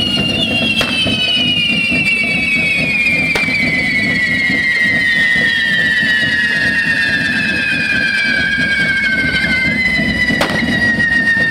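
Several whistling pyrotechnic fountains (devils' carretilles) screeching at once, their pitch sliding slowly down as they burn, over a steady rumbling hiss, with a few sharp cracks.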